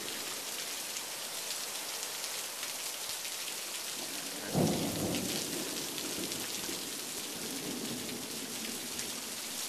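Heavy downpour of rain hissing steadily, with a sudden low rumble of thunder about four and a half seconds in that fades over a second or two.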